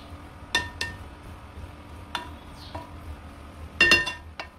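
A wooden spoon stirring minced meat and diced vegetables in a stainless steel pan, knocking against the metal pan several times. The loudest knock, near the end, rings briefly.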